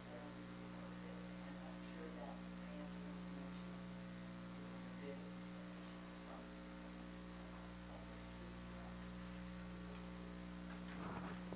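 Steady low electrical mains hum: a stack of even, unchanging tones.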